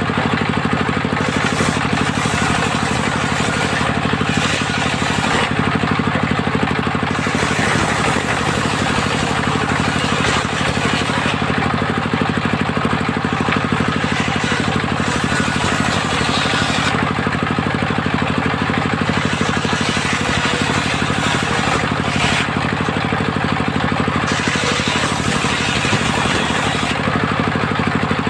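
Engine-driven mobile circular saw running steadily while its blade cuts hard segawe wood. A harsher, hissing noise swells and fades every few seconds over the constant engine drone.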